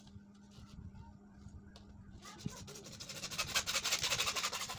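White PVC pipe being cut by hand with a thin saw blade. A fast, rasping scrape starts about two seconds in and grows louder toward the end.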